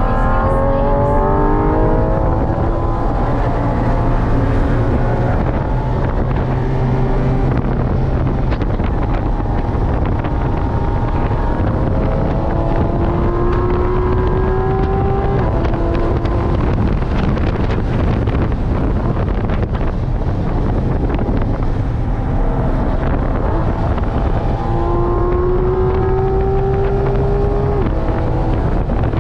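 Porsche 718 Cayman GT4 RS's flat-six engine under hard acceleration, heard from inside the cabin with wind and road noise. It revs up sharply near the start, then makes long rising pulls about halfway through and again near the end, the last one dropping off just before the close.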